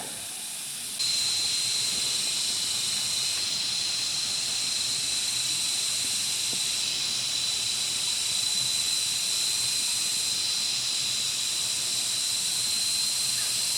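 Steady, high-pitched shrilling of an insect chorus, with one shrill, even tone joining about a second in.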